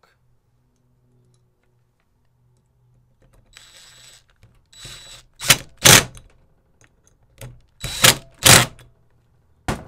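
Cordless DeWalt impact driver running in short pulls, driving small Allen button-head bolts into a motorcycle cylinder head. About three and a half seconds in it spins briefly twice with a high whine. Then it hammers in four loud short bursts in two pairs as the bolts snug tight, with one more short burst near the end.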